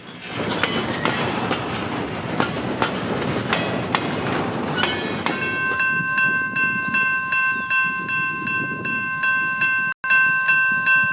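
Freight train running by with a rumble and sharp rail clicks, then about five seconds in the locomotive's air horn sounds one long steady chord. The horn holds to the end, with a brief dropout near the end.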